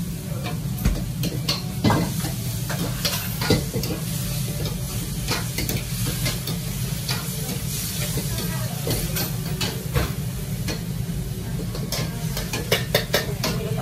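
Stir-frying in a wok: a metal ladle scraping and knocking against the wok over sizzling food, with a quick run of knocks near the end. A steady low hum runs underneath.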